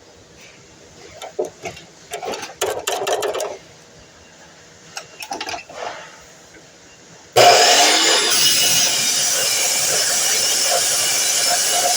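Scattered knocks and clatter of material being handled, then about seven seconds in a DeWalt miter saw's motor switches on, spins up and runs loud and steady.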